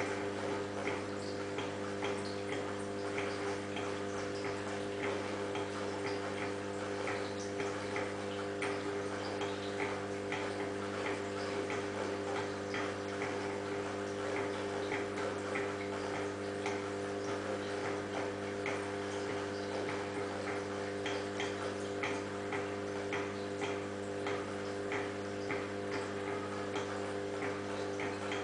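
Steady low electrical or mechanical hum, with many small irregular clicks and ticks over it.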